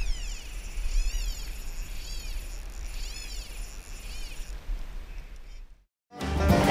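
A series of short, high animal calls, each rising then falling in pitch, about a second apart, over a low wind rumble on the microphone. Near the end the sound cuts out briefly and music starts.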